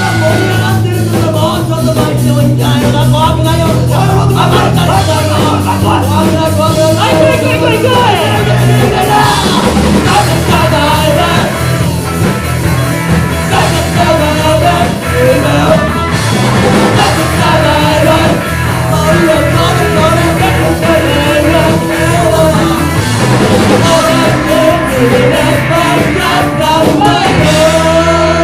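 Live rock band playing a song: a lead singer over bass, guitar and drums, loud and unbroken.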